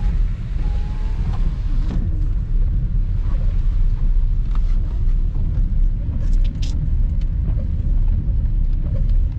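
Car cabin noise while driving slowly on a wet road: a steady low rumble of the car's engine and tyres, with a few faint ticks a little past the middle.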